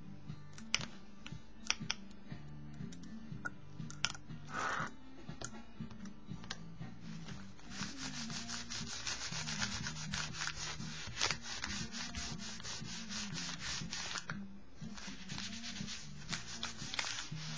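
A crumpled paper towel rubbed quickly back and forth across an inked sketchbook page, wiping the acrylic ink. It comes in two bouts of rapid strokes, from about halfway in and again after a brief pause near the end, with a few light taps and a short swish of paper before it. Quiet background music runs underneath.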